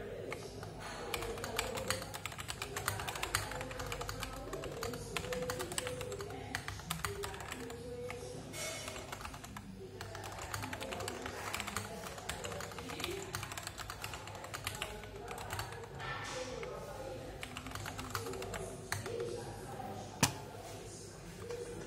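Fast typing, around 70 words per minute, on a unibody Dactyl Manuform mechanical keyboard with Gateron Yellow linear switches and XDA keycaps: a quick, uneven run of keystrokes. Background music with voices plays underneath, and one louder sharp click stands out near the end.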